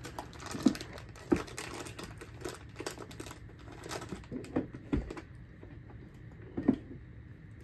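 Scattered, irregular light clicks and rustles of a small plastic item being fiddled with in a child's hands.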